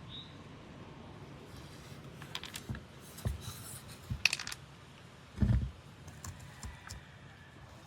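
Handling noise: scattered light clicks and rattles, with a dull thump about five and a half seconds in.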